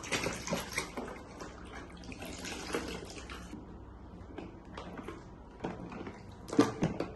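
Water splashing and trickling as hands play in it, then scattered small knocks and clicks of plastic toys, with the sharpest knock a little before the end.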